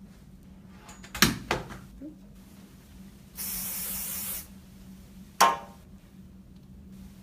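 A single burst of aerosol hairspray, about a second long. A couple of sharp knocks come before it and one more follows.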